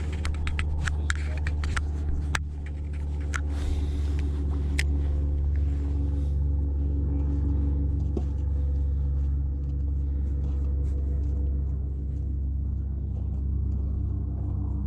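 Engine running steadily with an even low rumble, with a few sharp clicks and knocks in the first five seconds.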